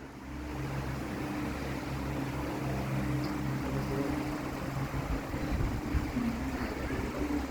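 A steady low motor hum holding one low pitch, which shifts slightly about six seconds in.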